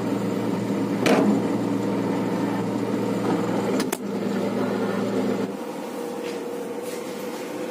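Refrigerator running with a steady hum, heard close up from inside the open fridge, with a click about a second in and a sharper one near four seconds. The hum drops away about five and a half seconds in.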